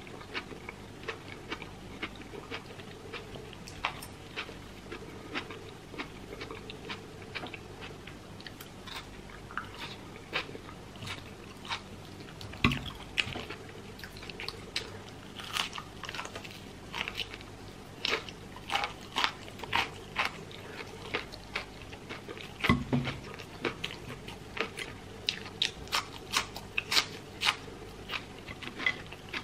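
Close-miked eating of crispy breaded fried chicken and French fries: a steady run of crunchy bites and chewing with many small crackles, growing busier in the second half. Two louder thumps come about 13 and 23 seconds in.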